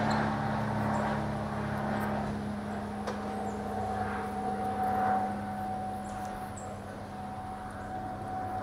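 Engine running steadily with a low hum and a held higher whine, gradually fading.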